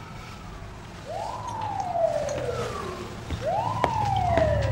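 Emergency vehicle siren wailing: two cycles that each rise quickly in pitch and then fall slowly, over a low steady hum.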